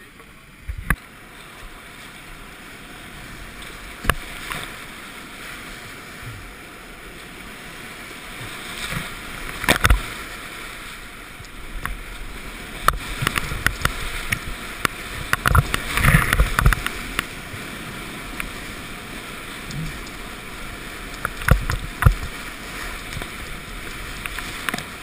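Whitewater rapids rushing around a kayak as it runs through them, a steady roar that builds up, broken by sharp splashes and knocks of water and paddle strokes, thickest around the middle.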